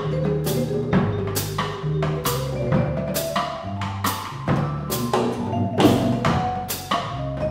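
Live small-band jam: a drum kit keeping time with cymbal strokes about twice a second, under bass notes and keyboard notes.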